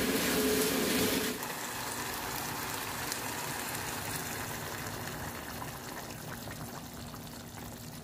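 Hot water poured from a kettle into a saucepan of sautéed chayote and potato cubes: a steady splashing trickle, louder for about the first second, then fading slowly.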